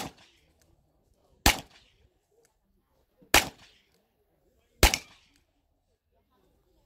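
Handgun shots fired one at a time, well spaced: one right at the start, then three more about one and a half to two seconds apart, each a sharp crack with a short echo trailing off.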